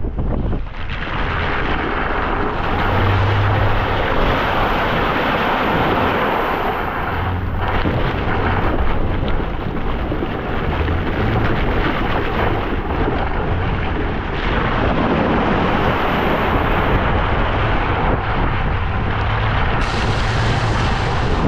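Heavy wind noise on the microphone: a steady rushing noise with a low rumble underneath, growing brighter near the end.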